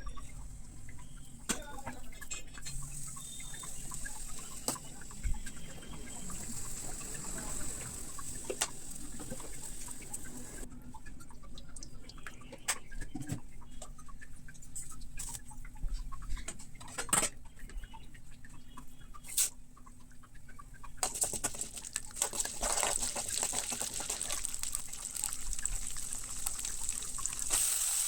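Ingredients sizzling in hot oil in a pan, with sharp clicks of a spatula against the pan. The sizzle drops away for several seconds around the middle and comes back louder about three-quarters of the way through.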